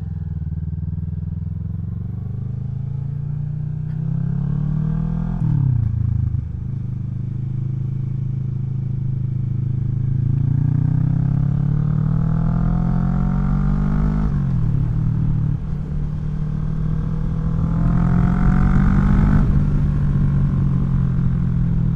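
2017 Kawasaki Vulcan 650 S parallel-twin engine through a CS Racing aftermarket exhaust with its baffle removed, accelerating through the gears. The engine note climbs, drops sharply at an upshift about five seconds in and again about fifteen seconds in, then climbs once more and holds steady near the end.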